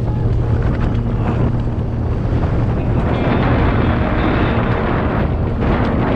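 Wind rushing over the microphone with the rolling and rattling of a mountain bike ridden fast down a dirt trail, a few faint knocks in it.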